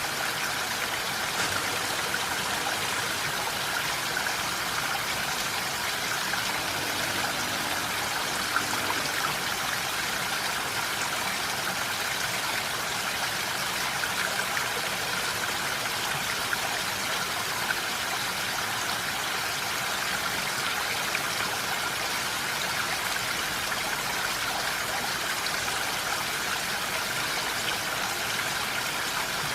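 Steady rain falling in a forest: an even hiss with a few sharper drop ticks.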